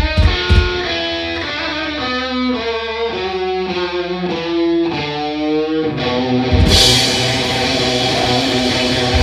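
Live rock band: the drums drop out and an electric guitar plays alone, holding a few wavering, bent notes. About two-thirds of the way through, the drums and bass crash back in with cymbals.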